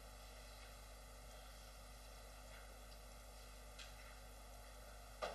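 Near silence: steady low mains hum and hiss of the recording, broken by a faint tick about four seconds in and a short knock near the end.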